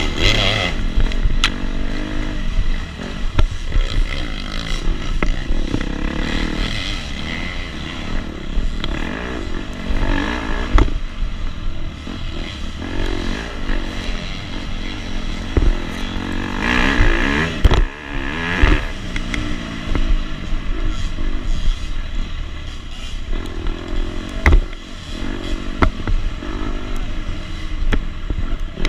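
250 SX two-stroke dirt bike engine revving up and down again and again as it is ridden hard, with a few sharp knocks and some clatter.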